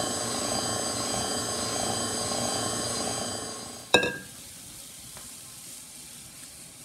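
Electric mixer beating pancake batter with a steady whirr, winding down about three and a half seconds in. A sharp clack follows, then a faint sizzle of batter in a hot pan.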